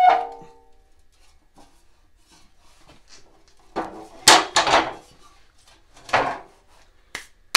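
The steel front frame of a Snapper riding mower clanks once with a brief metallic ring as it is swung free. About four seconds later come a cluster of loud scraping, clattering knocks as it is handled and set down, another a second or so after, and a couple of light clicks near the end.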